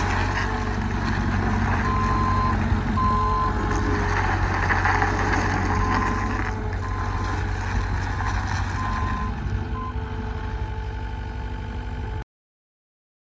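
John Deere 323D compact track loader's diesel engine running while its backup alarm sounds short, high beeps on and off as the machine reverses. The sound cuts off abruptly near the end.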